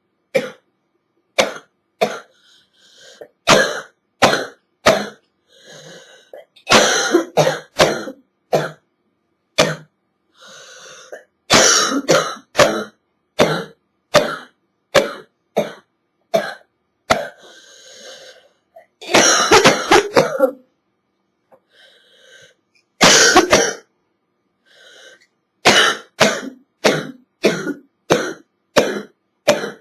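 A girl's nasty hacking cough from a chest cold: many single sharp coughs, broken by several longer fits of rapid coughing, with quieter breaths in between.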